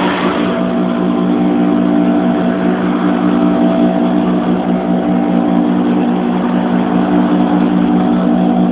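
Sewing machine running steadily while it stitches fabric, an even motor hum with no change in speed.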